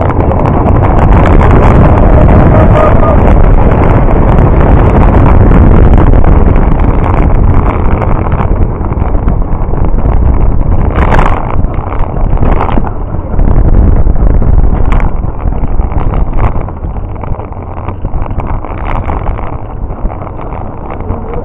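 Wind buffeting the microphone over the rumble of a rubber-tyred gravity cart rolling fast down an asphalt road, with no engine. It is loudest in the first third and eases later on, with a few short sharp sounds around the middle.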